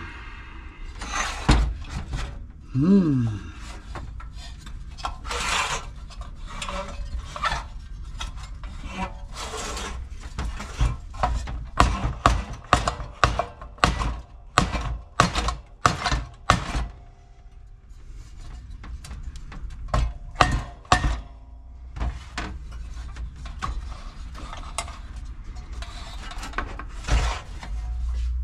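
Metal engine parts of a Briggs & Stratton 550EX lawnmower engine knocking, clanking and scraping against each other and the metal bench, in irregular strikes with busy clusters in the middle. The engine is being worked apart, its crankcase cover stuck on a bent crankshaft.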